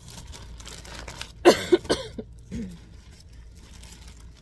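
A person coughing, one short loud cough about a second and a half in, followed by a brief small vocal sound.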